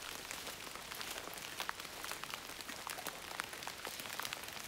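Steady rain falling on jungle foliage and a tarp shelter: a constant hiss with many sharp, irregular drop hits.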